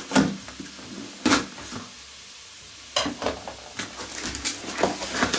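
A cardboard parcel being opened by hand: a series of short scrapes, rustles and knocks of cardboard, with a brief pause in the middle.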